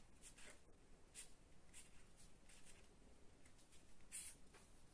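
Faint scratching of a marker pen writing on paper: a series of short strokes, the loudest about four seconds in.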